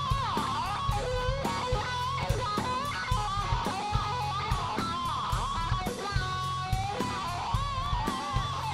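Electric guitar lead played live over bass and drums, the notes bent up and down with vibrato. It is an instrumental break of a rock song, with no singing.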